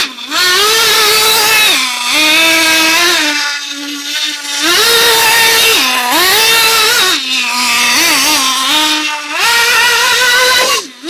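HSP Starpace nitro RC car's small two-stroke glow engine revving high and easing off over and over as the car spins donuts, its whine rising and falling every second or two.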